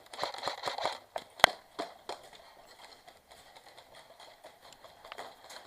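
Airsoft gun firing a rapid string of shots, about seven sharp clicks a second, that stops about a second in; a single loud sharp crack follows half a second later, then a few scattered fainter clicks.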